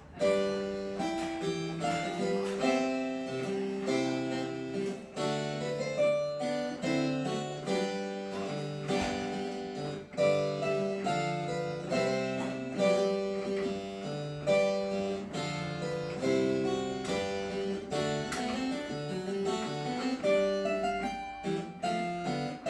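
A virginal, a small plucked-string keyboard instrument of the harpsichord family, playing a galliard, a 16th-century Renaissance dance. Chords and a running melody, each note with a sharp plucked attack that fades quickly.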